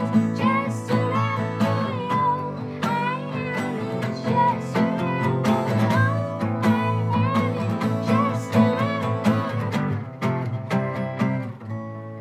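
A woman singing over strummed acoustic guitars in a live performance. Her voice stops about a second before the end, and the guitars ring on, fading.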